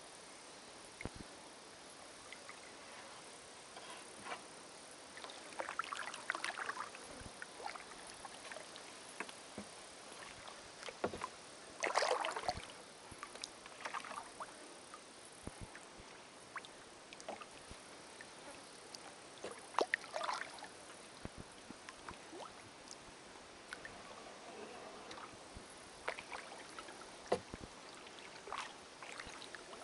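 Kayak paddle strokes in calm water: soft splashes and drips from the blades every few seconds, unevenly spaced, with scattered light clicks and knocks.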